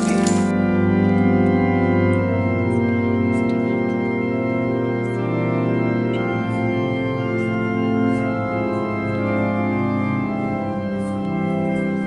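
Organ music: sustained chords on an electric organ, changing every second or two.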